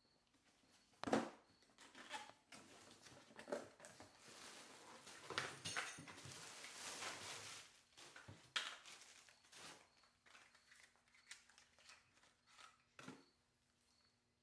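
An airblown inflatable being unpacked by hand: a cardboard box opened with a sharp snap about a second in, then crinkling plastic wrap and rustling nylon fabric as the folded inflatable is pulled out and unwrapped.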